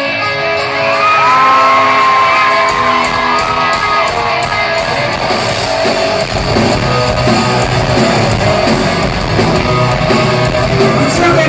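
Live rock band playing in a large hall, a guitar to the fore, with bass and drums coming in about three seconds in; shouts from the crowd over the music.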